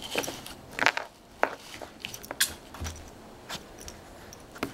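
An 11-week-old Yorkshire terrier–poodle puppy biting and gnawing at an ice cube: irregular sharp clicks and crunches, with about five louder ones.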